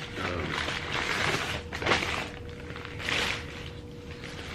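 Paper food packaging rustling and crinkling as it is handled, in a few short bursts, with a faint steady hum underneath.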